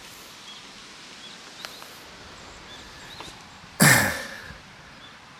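Steady outdoor background hiss with a few faint, short high chirps, and one brief loud rustle or breath about four seconds in.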